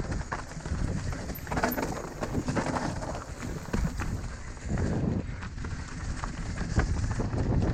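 Mountain bike running down a rough dirt trail: irregular knocks and rattles from the tyres and bike over the ground, over a low rumble of wind on the microphone.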